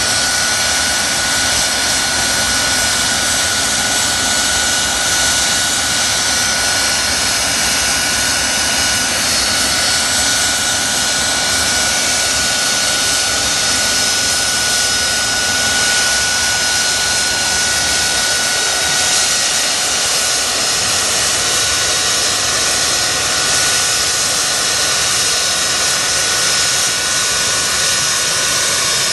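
Gulfstream III business jet on an engine and APU ground run: a steady, loud jet whine and hiss, with a whistling tone that fades away a little past halfway.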